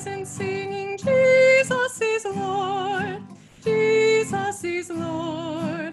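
A woman's solo voice singing a hymn in long held notes with vibrato, accompanied by strummed acoustic guitar.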